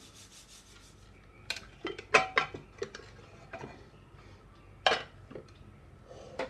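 Metal clanks and clinks of a pressure cooker's lid being worked loose and lifted off, a string of sharp knocks with the loudest about two and five seconds in.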